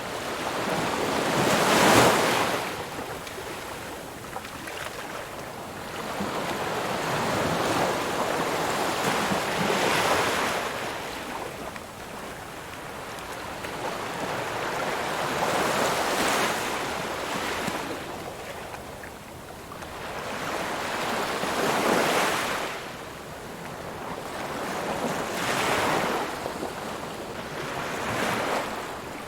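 Ocean waves breaking and washing in, swelling and ebbing in slow surges every four to six seconds, the loudest about two seconds in.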